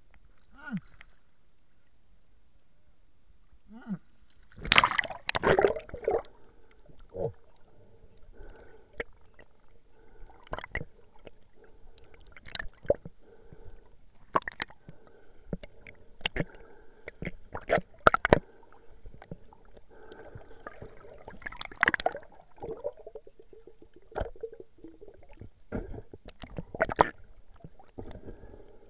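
Underwater sound on a night fishing dive: muffled water movement and many irregular sharp knocks and clicks against the camera, with a cluster about five seconds in and strong single knocks later, over a faint steady drone.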